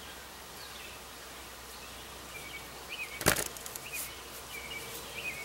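Hand-handling sounds of tying paracord and needle-nose pliers. About three seconds in there is a single sharp clack, followed by a few lighter clicks and rustles as the knot is worked by hand. Short bird chirps repeat faintly in the background.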